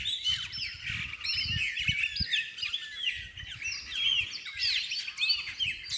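A chorus of many small birds chirping and calling together: dense, overlapping short notes that rise and fall in pitch.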